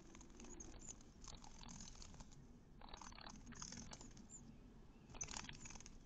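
Faint scratchy rustling of half-grown nestling birds shuffling and flapping their wings in the nest. It comes in several short bursts, with a few faint high peeps.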